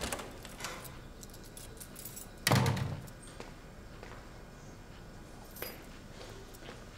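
Keys jingling with small clicks, and a door shutting with a single thud about two and a half seconds in.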